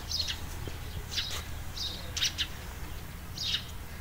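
Small birds chirping: short, high chirps repeating irregularly over a low background rumble.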